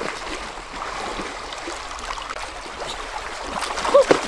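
Shallow stream running over stones, a steady rush of water. Near the end come sharp splashes of hands slapping into the water while grabbing at a fish.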